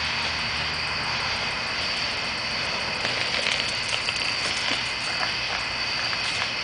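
Longboard wheels rolling over driveway pavement: a steady, even rumble, with a few short clicks in the second half. A steady high-pitched drone sits behind it.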